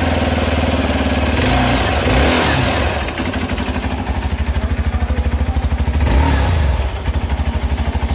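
Hero Xpulse 200 4V's oil-cooled single-cylinder four-stroke engine idling with a steady firing beat, revved up briefly twice: about two seconds in and about six seconds in.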